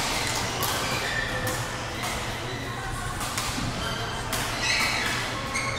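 Busy badminton hall ambience: scattered sharp racket-on-shuttlecock hits from surrounding courts and background chatter of voices, with several short high sneaker squeaks on the court floor in the second half, all reverberating in the large hall.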